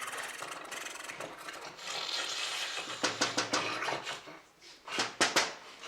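Rubbing and scraping with a series of sharp knocks or clacks, the loudest a quick cluster of three or four near the end.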